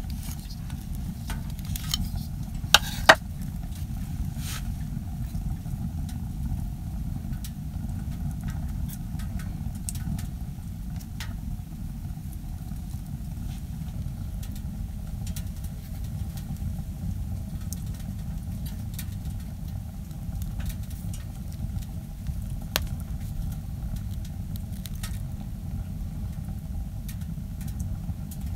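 Wood burning in a Winnerwell Nomad View wood stove: a steady low rumble with scattered crackles and pops, including two sharper clicks about three seconds in.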